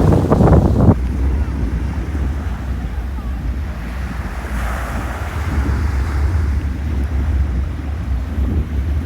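Surf washing in, with strong wind rumbling on a phone's microphone; a louder rush in the first second and another swell of surf near the middle.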